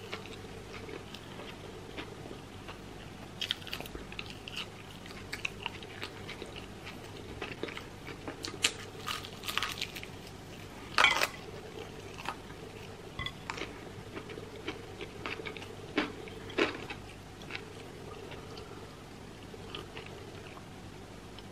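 A person biting and chewing crispy fried chicken close to the microphone: irregular crunches and wet mouth sounds, the loudest crunch about halfway through.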